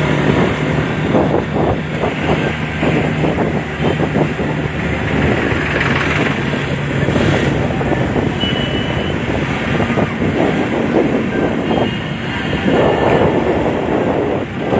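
A vehicle moving slowly along a road: its engine runs with a steady low hum, and continuous road and wind noise sits over it. The engine hum fades about halfway through, leaving the rushing road noise.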